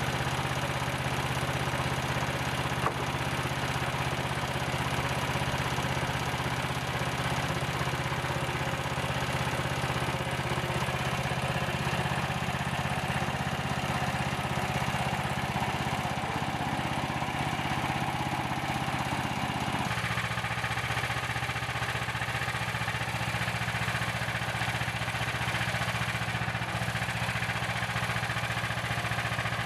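Gasoline engine of a Frontier portable sawmill running steadily. The sound changes abruptly about 20 seconds in.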